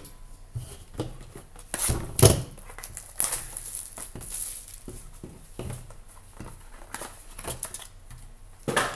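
Clear cellophane shrink wrap crinkling and tearing as it is pulled off a small sealed box of trading cards, in short rustles with handling knocks, loudest about two seconds in.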